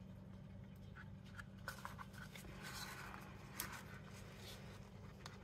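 Stir stick scraping resin out of a small mixing cup: faint rubbing and scraping with a few light clicks and taps, the sharpest a little after halfway. A steady low hum runs underneath.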